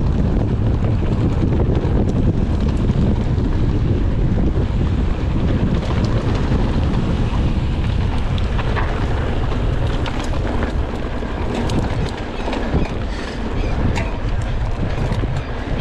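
Wind buffeting the microphone of a camera carried on a moving bicycle, a steady low rushing, with scattered light clicks and rattles from about halfway through.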